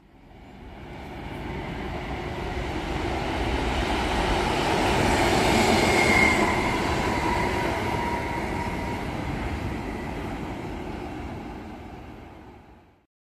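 A locomotive-hauled train passing through a station. Its rumble swells to a peak about halfway through, with a faint thin tone at the loudest point, then fades away.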